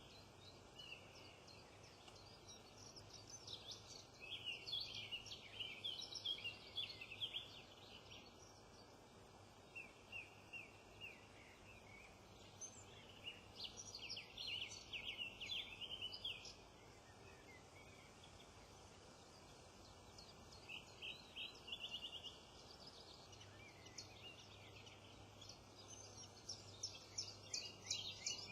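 Small songbirds singing: short bursts of high, quick chirping and trilling song, coming every few seconds over a faint steady background hiss.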